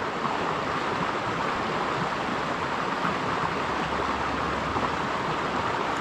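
Mountain stream water rushing over rocks, a steady even hiss.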